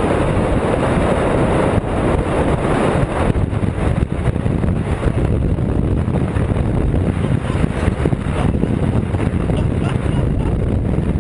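Steady, loud rush of wind on the microphone with the hiss and rumble of ice skates on ice, while the skater is towed fast across the ice.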